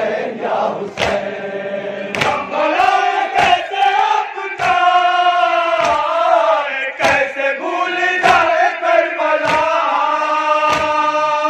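A noha, a Shia mourning lament, chanted by men's voices in long held lines. A sharp beat falls about every 1.2 seconds to keep time.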